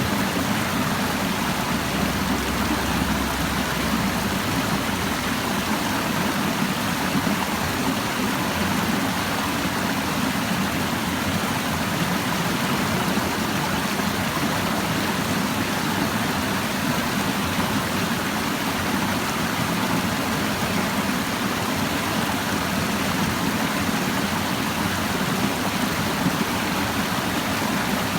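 Clear stream babbling steadily.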